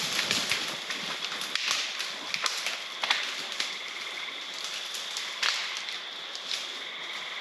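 Scattered crackles and rustles, like movement in dry leaves and brush, over a steady outdoor hiss, with sharper snaps about three and five and a half seconds in and a faint steady high tone from about three seconds on.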